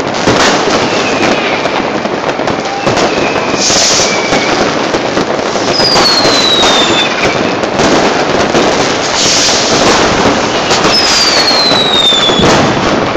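New Year's Eve fireworks and firecrackers going off continuously, a dense rattle of bangs and crackling. Whistling rockets cut through it, two clear whistles falling in pitch about halfway through and near the end.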